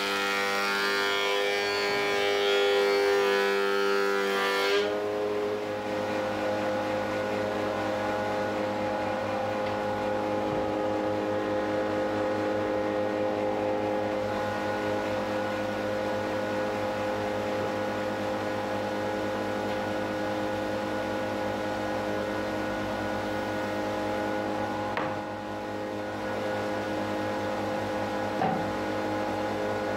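Metabo HC 260 planer-thicknesser running steadily with a constant whine. A rough hiss lies over it for the first five seconds; then it stops and the pitch steps up a little. The machine is running after its worn feed-roller bushings were replaced.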